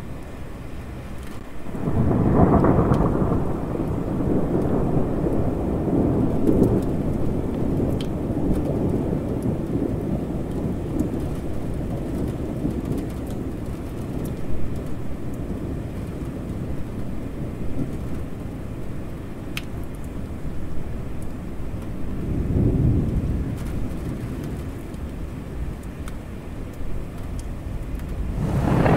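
Thunder rolling over steady rain. A loud rumble starts about two seconds in and rolls on for several seconds, a weaker one comes about three-quarters of the way through, and another builds at the very end.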